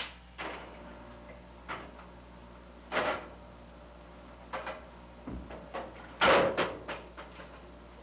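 Metal clanks and knocks from the loading machinery of a warship's 8-inch gun turret, irregularly spaced, with a louder cluster of clanks about six seconds in.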